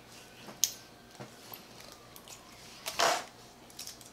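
Quiet handling noises from a plastic action figure and its clear plastic blister packaging: a few light clicks and taps, and a short rustle about three seconds in.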